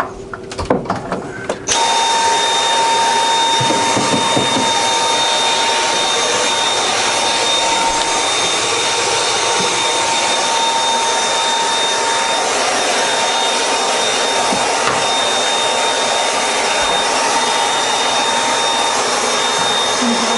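A few knocks, then an electric motor blowing air switches on abruptly about two seconds in and runs at a steady level with a thin high whine, the kind of sound a vacuum cleaner or blower makes.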